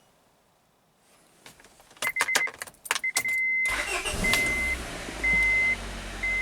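Car ignition key clicking, then the car's engine starting about halfway through and running steadily, with a warning chime beeping about once a second. The start is being made for a scan tool's starter test.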